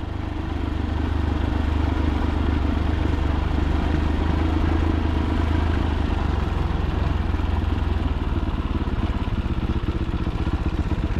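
Fantic Caballero 500's single-cylinder four-stroke engine running under way, building up over the first couple of seconds and then pulling steadily.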